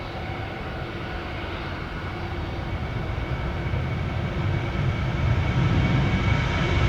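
Jet airliner's engines, a steady rushing noise with a high whine, growing steadily louder as the aircraft comes closer.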